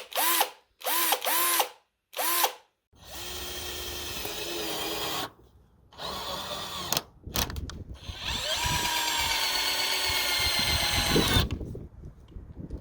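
Avid Power 20V cordless drill motor running off the trigger. Three quick blips rise and fall in pitch near the start. Then come longer steady runs of a few seconds each, the last ending abruptly shortly before the end.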